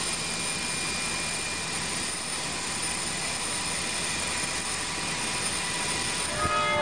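Tupolev jet airliner's turbines running steadily on the apron: a constant rushing noise with a high, steady whine.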